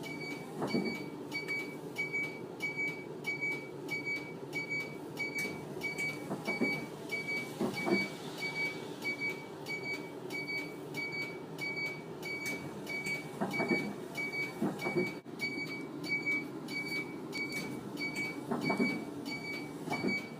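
Hino factory-fitted left-turn warning chime sounding over and over, about two short high beeps a second, the warning that a truck or bus is turning left. Under it runs a steady low rumble that swells louder now and then.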